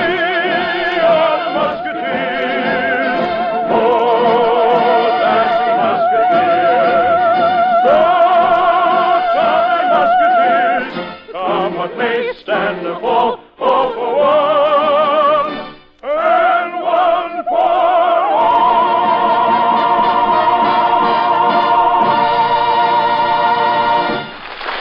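Operatic singing voices with choir and orchestra in an operetta finale, the voices heavy with vibrato. Near the end they settle on one long held note that cuts off just before the end. It comes through a narrow-band old broadcast recording.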